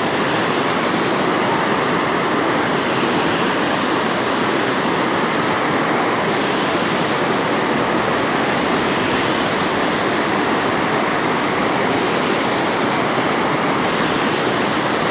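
Steady rush of water pouring through a dam spillway: an even, unbroken roar of falling and churning water.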